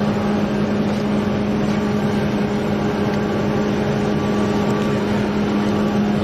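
Steady hum of an idling police patrol car, a constant low drone under an even wash of noise.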